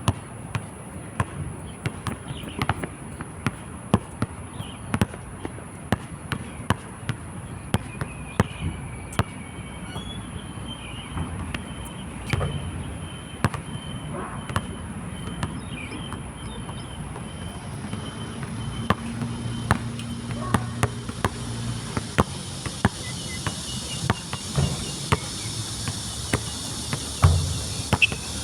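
A basketball dribbled on a hard outdoor court: sharp, irregular bounces, one or two a second, over a steady high insect drone. A thicker layer of insect buzzing joins about two-thirds of the way through.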